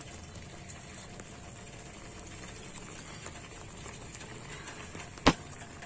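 Sugar syrup boiling steadily in a pan with chenna discs for rasmalai cooking in it. One sharp knock about five seconds in.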